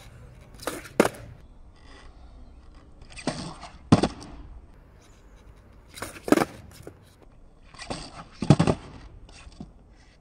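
Skateboard ollies on asphalt, four in a row about every two and a half seconds: each time the tail pops sharply against the ground and the board smacks back down on its wheels a moment later.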